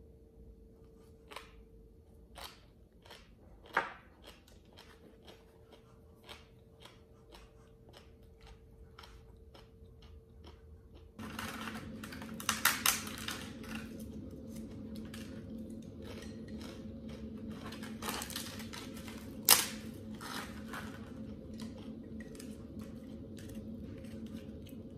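Close-miked eating: chewing and crunching of lotus-stem salad and crisp sesame rice cracker, with light clicks of chopsticks on a dish. There are bursts of loud crackling about twelve seconds in and a sharp crack near twenty seconds. A steady low hum starts about eleven seconds in.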